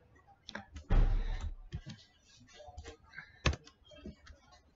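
Computer keyboard typing: irregular, scattered keystroke clicks, with one sharper click past the middle. A louder brief noise lasting about half a second comes about a second in.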